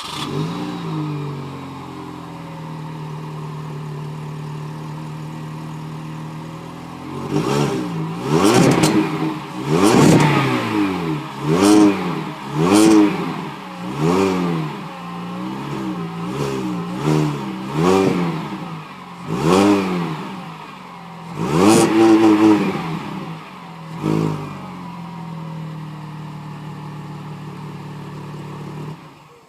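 Mini Cooper S R52's supercharged 1.6-litre four-cylinder engine on its stock exhaust, running cold just after starting. It idles steadily, then is blipped in about a dozen short revs over the middle stretch, and settles back to a steady idle.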